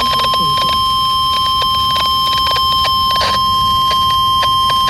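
NOAA Weather Radio warning alarm tone: a loud, steady single high tone near 1050 Hz, the alert sounded before a weather warning is read. It comes with crackling clicks of radio static.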